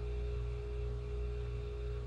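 Steady electrical hum with a faint high whine held on one pitch.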